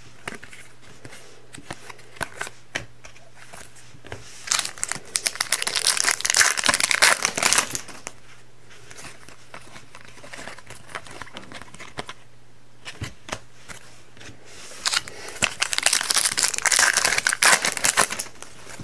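Wrappers of Panini Prizm hockey card packs being torn open and crinkled, in two spells of a few seconds each, with light clicks in between.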